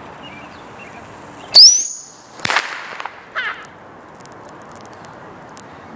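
Bottle rocket launching: a sudden loud whoosh about a second and a half in, with a whistle that rises sharply and then holds a high pitch, followed by two shorter rushes about a second apart.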